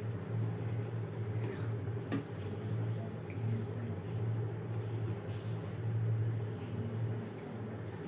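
Steady low background hum, swelling and fading slightly, with a faint click about two seconds in.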